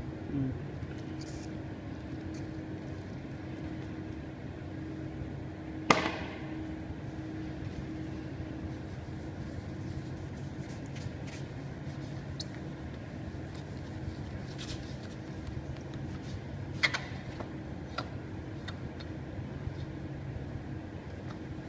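Handling and wiping noise as a glass pane is cleaned with tissue: a sharp knock about six seconds in, a lighter one about seventeen seconds in, and scattered faint ticks, over a steady low electrical hum.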